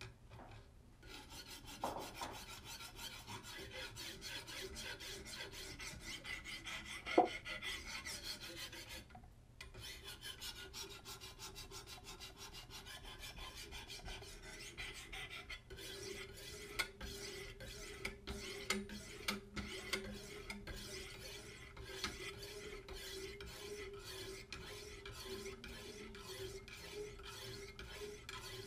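Sharpening stones on a Wicked Edge guided sharpener rasping in quick alternating strokes along both sides of a clamped carbon steel Sabatier slicer blade. There is a single sharp click about seven seconds in and a brief pause a couple of seconds later.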